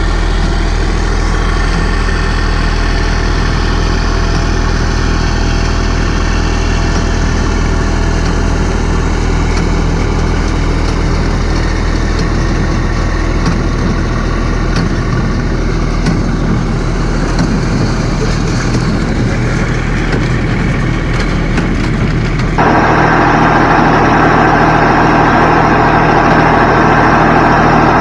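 Massey Ferguson 254S tractor's diesel engine running steadily while pulling a Welger WSA 350 low-pressure baler as it picks up and bales hay. About 22 seconds in, the sound suddenly becomes louder and brighter, heard close up.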